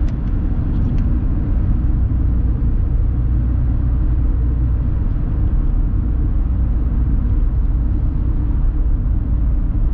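Steady low rumble of tyre, road and engine noise inside the cabin of a 2020 Toyota Aygo, its 1.0-litre three-cylinder engine cruising at about 85 km/h on a motorway.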